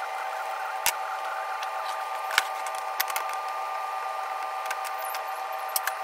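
A workshop power tool running steadily with a hum of several fixed tones, and a few sharp knocks of wood being handled over it.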